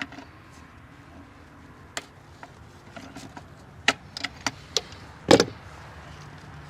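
Pliers gripping and twisting an old PCV valve out of its port on a Ford 3.5L EcoBoost engine: scattered light plastic-and-metal clicks and knocks, with one louder knock about five seconds in as the valve comes free.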